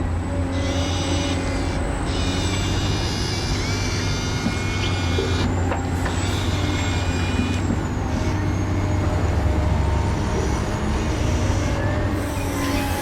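Radio-controlled model truck running, a steady low hum with a few steady higher tones over it.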